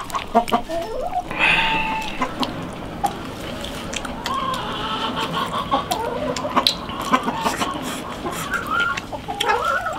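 Chickens clucking, with a higher call about a second and a half in, over light clicks of chopsticks against a bowl.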